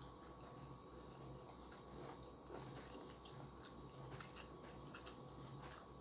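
Near silence with faint eating sounds: small irregular clicks of chewing and of fingers picking at rice and chicken, mostly in the middle seconds, over a low room hum.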